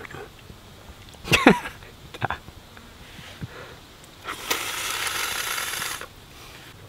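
A person sucking the brain out of a cooked groundhog skull through the nostril, drawing air hard. A short squeak slides steeply down in pitch about a second in, and then comes a long, loud hissing suck of nearly two seconds near the end.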